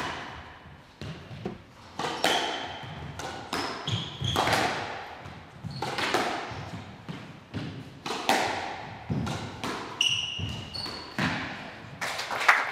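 Squash rally: the ball cracking off rackets and the court walls about once a second, each hit ringing in the hall, with short high squeaks of players' shoes on the court floor. Near the end, a patter of applause as the rally finishes.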